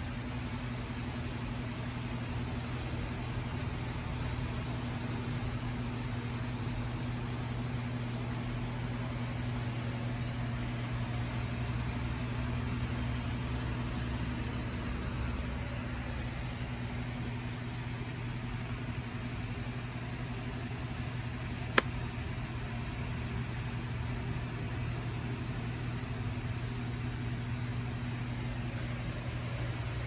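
Steady low machine hum with an even hiss, broken once by a single sharp click about two-thirds of the way through.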